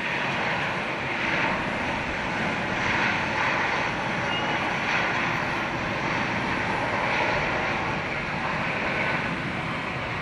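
Airliner jet engines running, a dense, steady rushing noise that swells right at the start and eases a little near the end.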